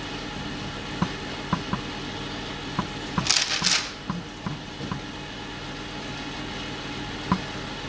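Quiet handling sounds of a plastic piping bag being squeezed over baking paper while choux pastry is piped: scattered soft clicks and taps, with a short rustling hiss a little over three seconds in.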